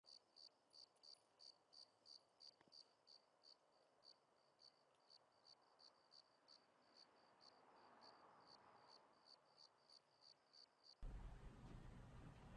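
A cricket chirping faintly and steadily, about three short chirps a second, cutting off suddenly near the end. A low hum of room tone follows.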